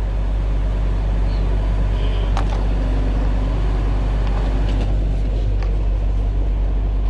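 Semi truck heard from inside the cab while cruising on a wet highway: a steady low engine drone with tyre noise, and a few faint clicks.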